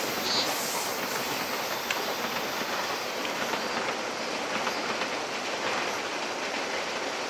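Electric train running past, its wheels clicking over the rail joints. There is a brief high wheel squeal just after the start.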